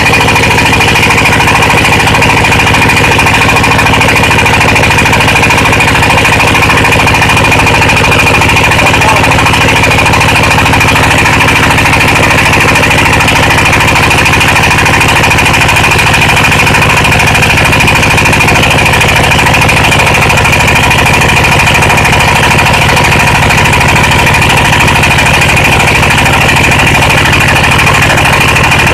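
Floating fish-feed pellet extruder running steadily and loudly: a constant low mechanical drone with a steady high whine on top, with no change in speed or load.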